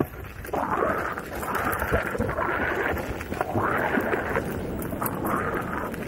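Electric unicycle riding along a dirt trail: wind rushing over the microphone and tyre noise, with a motor whine that shifts pitch up and down a few times as the speed changes.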